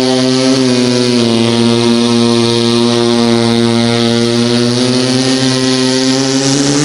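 A very long, loud, drawn-out burp held on one low droning pitch, dipping slightly about a second in.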